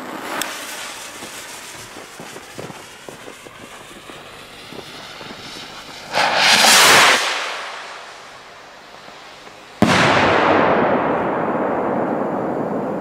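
Fireworks: a fuse fizzing and crackling, then a rocket launching with a loud rushing hiss about six seconds in. Near ten seconds comes a sudden loud blast that trails off in a long, slowly fading rush.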